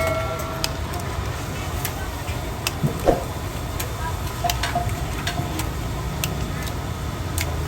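Roadside street ambience: a steady traffic rumble with faint voices, and scattered sharp clicks and taps throughout.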